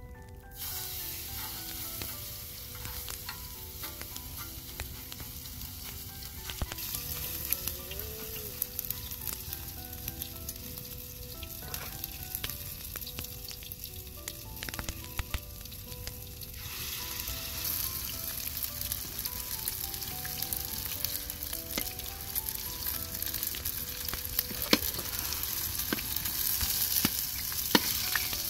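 Grated potato patties sizzling as they fry in a wide pan of hot oil. The sizzle starts about half a second in, as a handful of the mixture drops into the oil, and grows louder later on.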